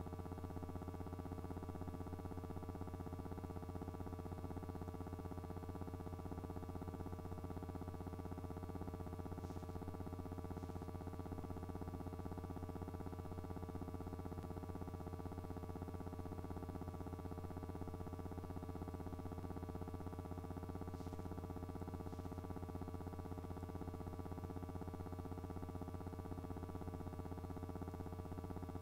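A steady electrical-sounding hum: a strong low drone with a few fixed higher tones over faint hiss, unchanging in pitch and level, with a couple of faint ticks.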